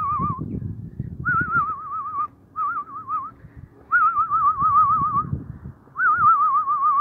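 A warbling whistle in short phrases about a second long, repeated four or five times. Each phrase starts higher and wavers quickly down in pitch. Rustling noise runs underneath.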